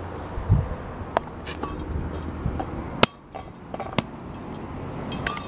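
Handling noises: a handful of sharp clicks and clinks, about five spread out, with a low thump near the start, as a metal spray paint can is picked up off the asphalt. A low steady outdoor hum runs underneath.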